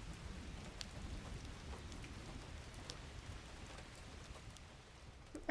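Faint steady hiss over a low rumble, with a few scattered light ticks and a slightly louder knock near the end.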